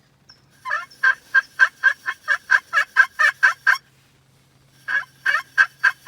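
Turkey call worked by hand, sounding a run of short, high-pitched turkey notes at about four a second, then a second run starting near the end.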